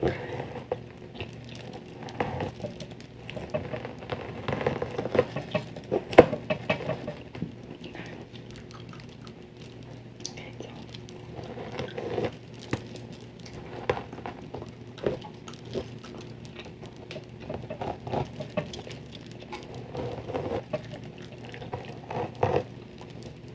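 Metal bangle bracelets jangling and clicking as the hands move, in irregular small clusters close to the microphone, with the sharpest click about six seconds in. The jangling comes amid hair handling and gum chewing.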